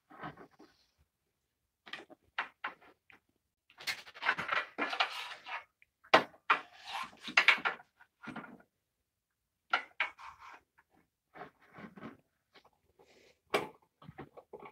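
Knocks and scrapes of a wooden board and metal clamps being handled and tightened on a table saw's cast top while a jig is clamped in place, the saw not running. Short irregular bumps, with two longer scraping stretches about four and six seconds in.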